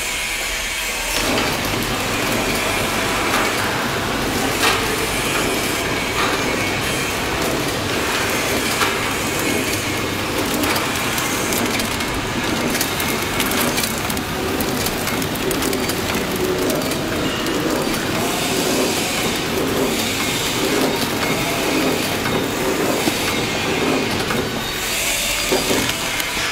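Horizontal flow-wrap (pillow) packaging machine running, a steady mechanical clatter and rattle with frequent clicks as it wraps chew sticks in film.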